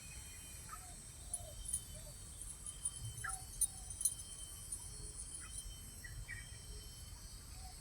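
Faint steady high-pitched insect chorus, with a few short, faint bird calls and some scattered light clicks.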